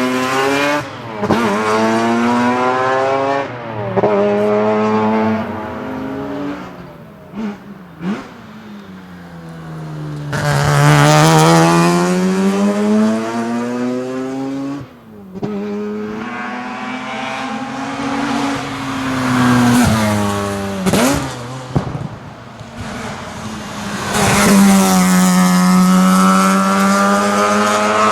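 Mazda RX-7's two-rotor Wankel rotary engine at full race effort, its pitch climbing under acceleration and dropping sharply on gear changes and braking, over and over. A few sharp cracks come as the throttle is lifted.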